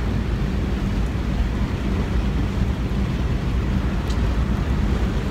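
Steady low rumble of a car heard from inside its cabin, with an even hiss of wind and road noise over it.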